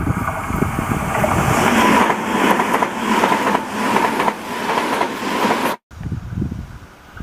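TOMIX N-gauge Tobu 100 series Spacia model train running on its track: a steady motor whine with a regular clicking from the wheels, growing louder as it passes close. The sound cuts off abruptly about six seconds in, followed by a quieter, fainter running sound.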